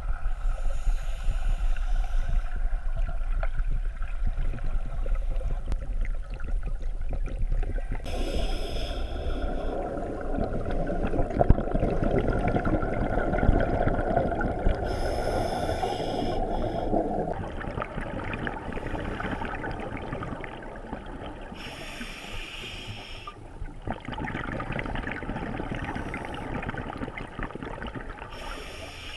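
Scuba diver breathing through a regulator underwater: a short hissing inhalation about every six or seven seconds, and longer bubbling, rushing exhalations between them.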